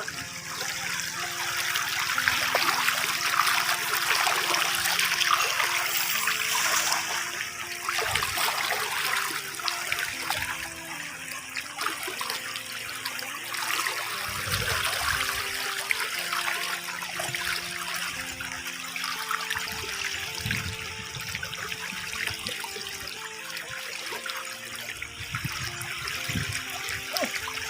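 River water rushing and splashing, loudest in the first several seconds, with faint background music underneath.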